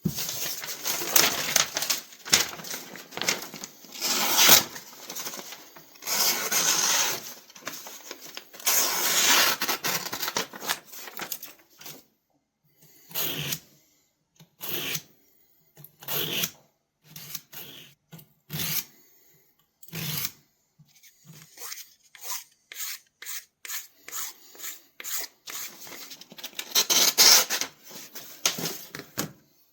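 Pocket-knife blade stroked against an abrasive sharpener, rasping. First a dense run of back-and-forth strokes, then slower single strokes about a second and a half apart, then a quick series of short strokes near the end.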